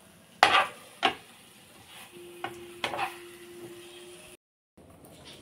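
A steel spatula stirring eggs and potatoes in thick masala paste in a dark frying pan, scraping and knocking against the metal with a few sharp strikes: one about half a second in, one at a second, and two close together near three seconds. The sound cuts off abruptly about four seconds in.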